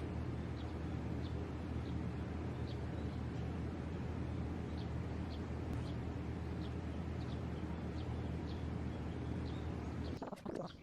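Outdoor ambience: small birds chirping, short high calls repeating every half second to a second, over a steady low rumble. The rumble and chirping cut off abruptly near the end.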